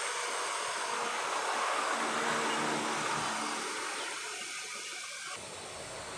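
A steady rushing noise that swells over the first two to three seconds, with a faint hum beneath it, then eases off and drops abruptly about five seconds in.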